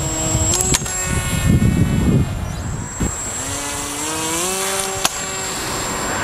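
RC flying wing's electric motor and propeller whining, rising in pitch in steps as the throttle is opened during and after a bungee launch. A sharp clack just under a second in and another about five seconds in, with bursts of low rumble early on and around two seconds.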